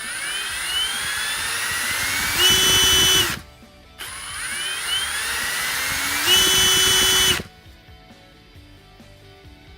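Electric impact drill triggered twice: each time the motor winds up with a rising whine, runs louder at full speed for about a second, then cuts off suddenly. The second run starts about four seconds in.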